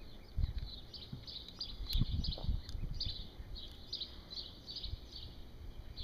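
Small birds chirping over and over in the background, about three short high chirps a second. A few soft, low thumps come about two seconds in.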